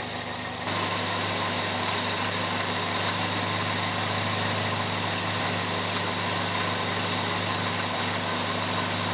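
A 2001 Chevy Prism's Toyota 1.8L four-cylinder engine idling roughly and sputtering, heard under the open hood; it gets louder suddenly less than a second in. The sputter is a lean misfire at idle, which the title puts down to restricted fuel injectors.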